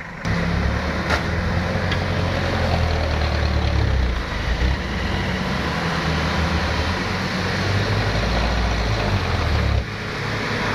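Diesel pickup engines running hard under heavy load, straining to drag a stuck pickup out of deep mud on a tow strap. The sound starts suddenly, dips briefly about four seconds in, and falls away sharply near the end.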